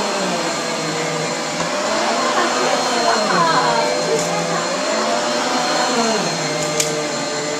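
Vacuum cleaner running on carpet, a steady drone whose pitch rises and falls repeatedly.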